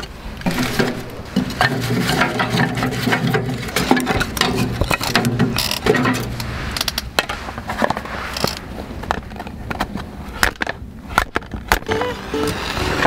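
Firewood and kindling clattering and knocking against a wood stove's metal firebox as it is loaded and the fire lit: a steady run of sharp clicks and knocks.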